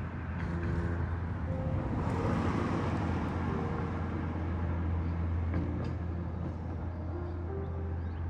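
Road noise from a car driving: a steady low rumble with tyre and wind hiss that swells about two seconds in.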